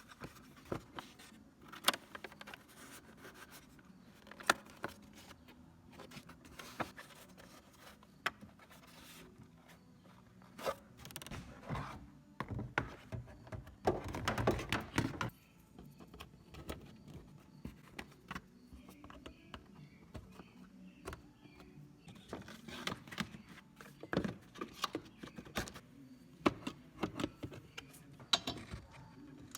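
Irregular clicks, knocks and scrapes of a blower motor cover being handled and fitted back into place by hand, with a longer stretch of scraping and rustling about halfway through.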